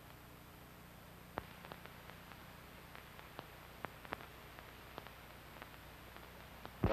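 Faint steady hiss and low hum of a worn archival recording, with scattered clicks and pops. Right at the end a song with guitar and singing starts.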